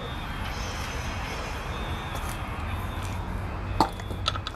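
Steady rumbling hiss of background machinery or traffic. About four seconds in there is a sharp click, then two lighter clicks, as the hose fitting of a hand-pump gear lube canister is handled.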